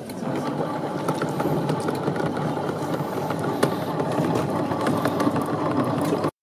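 Compact bucket-type washing machine running, its motor and pulsator churning the soapy water, with a few light clicks. The sound cuts off abruptly near the end.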